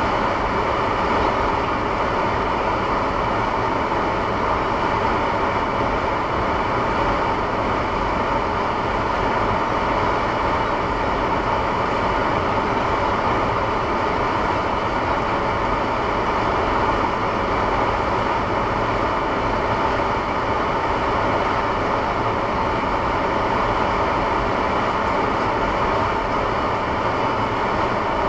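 Steady noise of a Honda Civic heard from inside the cabin: a constant hiss and rumble that does not change in pitch or loudness.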